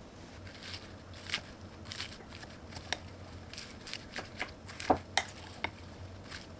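A spoon tossing lettuce and torn laver in a ceramic bowl: crisp leaf rustles with sharp clicks of the spoon against the bowl. The loudest clicks come twice, close together, a little before the end.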